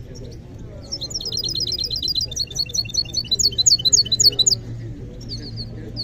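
Caged songbird singing: a fast run of repeated high chirps starting about a second in and lasting several seconds, then softer chirps near the end.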